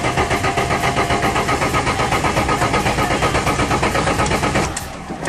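Rally car's starter motor cranking the engine in an even, rapid pulse, and the engine does not catch. The cranking stops near the end, followed by a short click.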